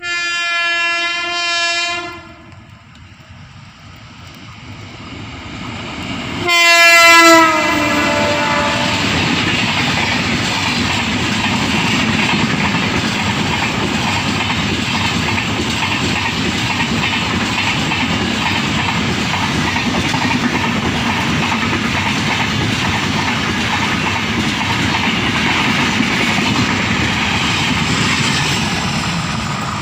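Indian Railways WAP-7 electric locomotive sounding its horn in a blast of about two seconds, then a second, louder blast about six and a half seconds in whose pitch drops as the engine passes. The express's coaches then run past with a steady loud rush of wheels on rails.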